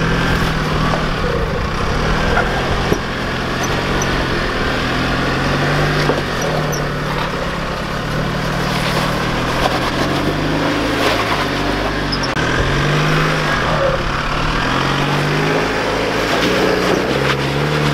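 Holden Colorado 4WD's engine revving up and down under load as it crawls up a steep, rutted dirt and rock climb, the revs rising and falling again and again.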